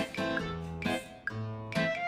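Background music: a plucked, light melody with notes about every half second over a held bass.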